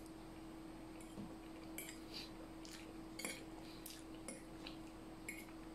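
Faint light clinks and taps of a metal fork against a plate while eating, several scattered over the few seconds, over a low steady hum.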